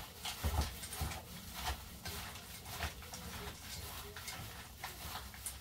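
Cat chewing dried anchovies from a bowl: an irregular run of small crunches and clicks.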